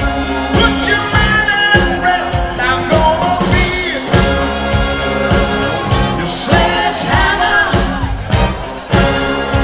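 Live pop-rock band playing with singing, over a steady drum beat.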